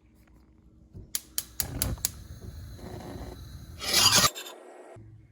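Rasping and scraping handling sounds with several sharp clicks, the loudest a rasping burst about four seconds in.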